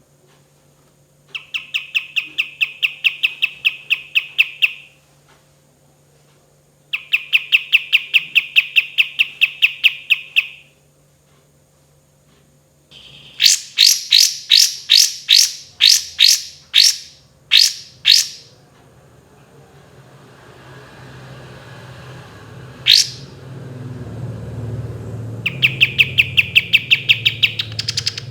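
Kapas tembak bulbul singing fast, rattling trills in repeated bursts of about three seconds. In the middle comes a louder run of separate sweeping notes, then one sharp note, and a low rumble rises underneath the later part.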